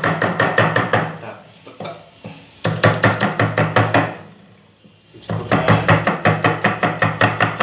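A knife chopping chilies, garlic and kencur on a thick round wooden chopping block, fast rhythmic knocks several a second in three runs with two short pauses, each knock ringing hollow off the block.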